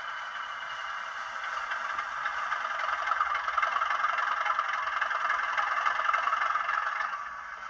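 Class 37 diesel engine sound, the English Electric engine's note from an ESU LokSound V5 sound decoder, played through an N gauge model's tiny speaker so that it has no bass, with a rattle under it. It grows louder over the first few seconds and drops back about seven seconds in.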